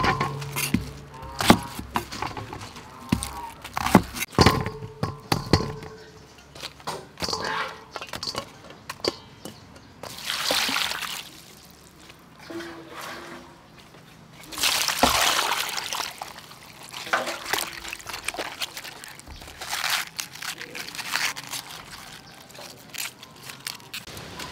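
A kitchen knife chopping napa cabbage on a wooden chopping board, a run of sharp knocks. About ten seconds in, water pours and splashes in a steel bowl as the cabbage is washed by hand, in several separate bursts.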